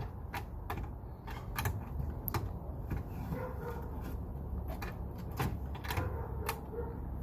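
Irregular knocks and clicks from a wooden gate and its latch, spaced a second or so apart, as a young buck goat works at it from the other side to open it.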